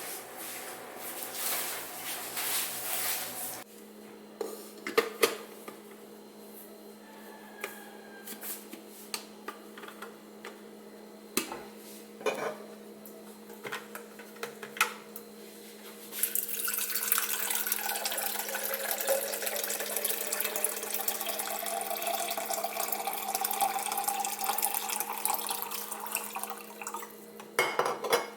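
Clinks and clatter of dishes being handled, then about eleven seconds of tap water running into a container, its pitch rising slightly as it fills.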